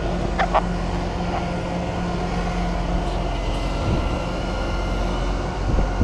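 A large vehicle engine running steadily: a low rumble with a steady hum, and two short clicks about half a second in.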